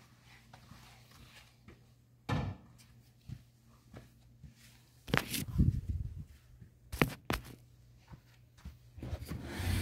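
A few dull knocks and thumps from an upholstered armchair being handled and moved on carpet. The loudest come about five to six seconds in, and a rustling noise starts near the end.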